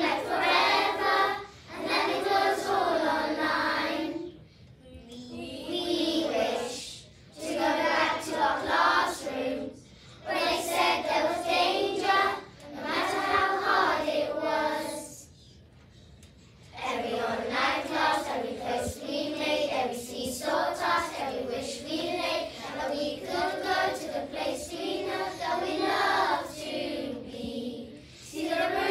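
A group of young children singing a song together as a choir, in phrases separated by short pauses, with a longer pause a little past the middle.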